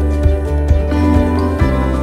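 Background music with a steady beat, about two beats a second, over sustained held chords.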